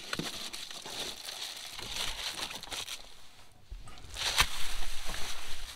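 Cardboard window covers wrapped in t-shirt fabric rustling and scraping as they are pushed into place in a car window, with a sharper crinkle and click about four and a half seconds in.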